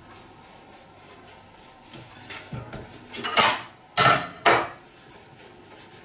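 Dough being kneaded and rolled by hand on a wooden cutting board, a faint regular rubbing, then three louder knocks and scrapes a little past three seconds in as a metal bench scraper is taken up against the board.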